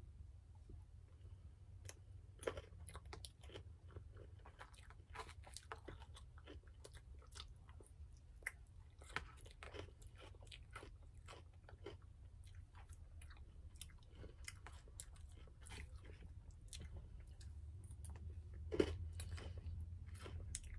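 A person eating with a fork from a plastic container: close-up chewing and irregular little clicks and crunches, one louder near the end, over a low steady hum.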